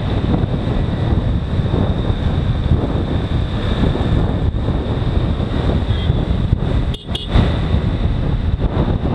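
Wind rumbling steadily over the camera microphone of a moving motorcycle in traffic. The sound drops out for a moment about seven seconds in, then comes back with a short loud bump.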